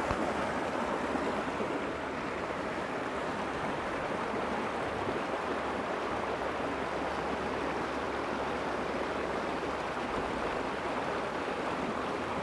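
Shallow river water rushing between rocks in a small rapid, a steady, even rushing sound.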